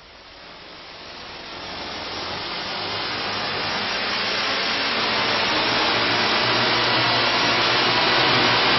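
A hissing noise fading in and swelling over several seconds, then holding steady, with faint low tones joining underneath in the second half: an electronic noise swell opening the song.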